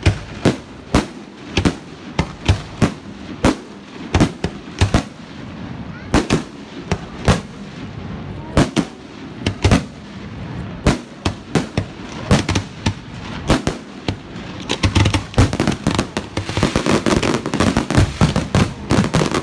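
Aerial fireworks bursting in a series of sharp bangs, one or two a second, turning about fifteen seconds in into a dense, rapid crackling barrage.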